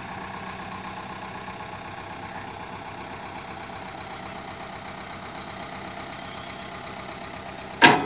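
Road roller's diesel engine idling steadily, then a single sharp bang near the end.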